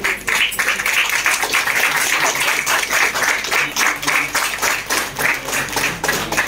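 A small group of people applauding, with dense, rapid hand claps.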